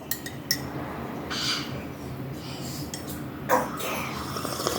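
Tableware being handled: a few light clinks of utensils against dishes and a brief scraping.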